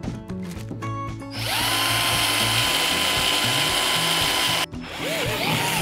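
Cordless drill boring a bolt hole through a kayak's plastic deck. The motor winds up about a second and a half in, runs steadily for about three seconds and stops, then gives a few short spurts near the end.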